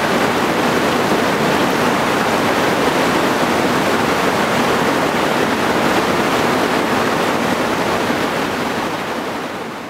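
Rushing whitewater of a standing river wave, a steady loud roar of water, fading out near the end.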